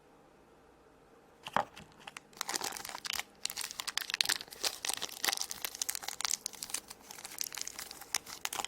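Crinkly plastic wrapper of a small blind-bag toy surprise being torn open and crumpled by hand, a dense irregular crackling that starts about two seconds in after a first crackle.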